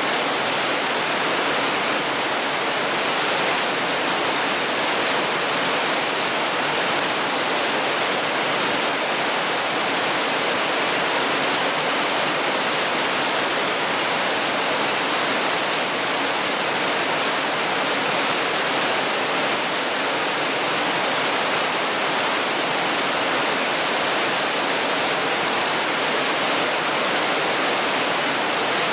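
Mountain stream rushing over rocks, a steady hiss of flowing water.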